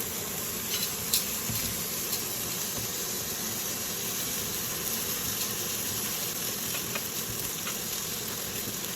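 Butter sizzling steadily in a hot pan, with a few small crackles.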